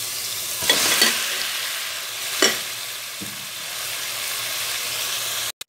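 Hot oil with garlic-ginger paste sizzling steadily in a pot as boiled chicken pieces are added, with a few sharp knocks and clatters as the pieces go in, loudest about a second in and again after two and a half seconds. The sound breaks off for an instant near the end.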